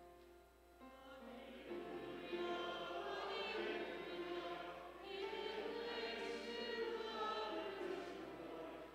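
A congregation singing a hymn together, many voices that come in strongly about two seconds in after a held instrumental note.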